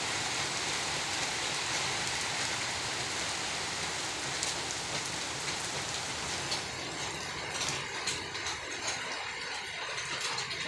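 Heavy rain falling steadily on the ground and surfaces as a dense, even hiss. About six and a half seconds in, the hiss thins and single drops stand out.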